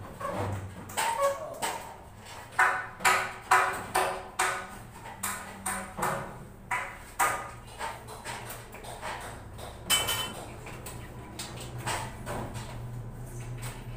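Hammer blows ringing on metal ceiling framing. A quick run of strikes, about two or three a second, gives way to slower scattered blows, with one loud strike near the end.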